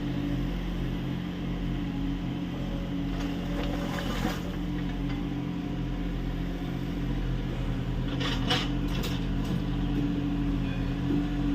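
Kubota U30 mini excavator's diesel engine running steadily under hydraulic load, with a few short clatters about four seconds in and a quick run of them around eight to nine seconds in.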